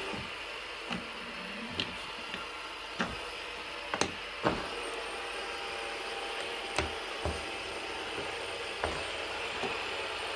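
Scattered light clicks and taps of small objects being handled and set down, about nine in all, over a steady background hiss.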